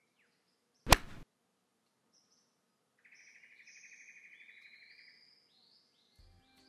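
A single sharp crack of a golf club striking a teed ball about a second in, followed by birds chirping and trilling. Music begins near the end.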